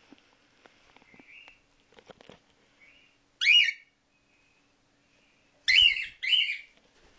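Female cockatiel calling: a few soft, quiet chirps, then three loud, shrill calls, one about halfway through and two in quick succession near the end.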